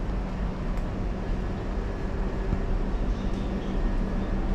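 Steady low rumble and hum of indoor background noise, with a few faint clicks.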